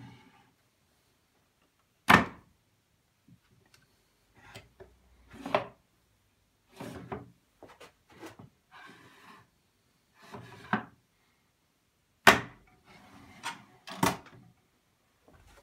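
Small wooden box being slid out of a desk pigeonhole and pushed back in: wood scraping on wood, with several sharp wooden knocks. The loudest knocks come about two seconds in and again near the end.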